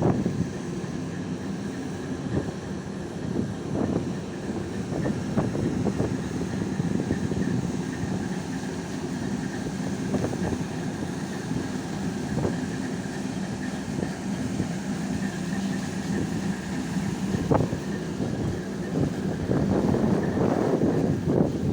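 Harbour tug's engines running steadily as a low rumble, with wind buffeting the microphone and occasional short knocks.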